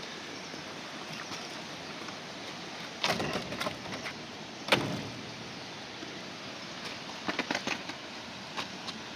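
Steady background noise with a few sharp knocks and clattering clicks: a cluster about three seconds in, one sharp strike near five seconds, and another cluster near the end.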